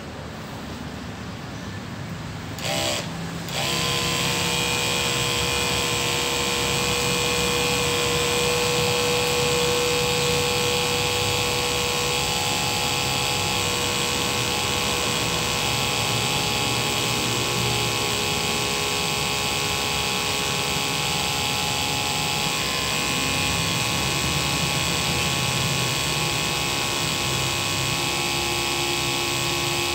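Small electric sprayer pump switching on about three and a half seconds in, then running steadily as a hum with several constant tones.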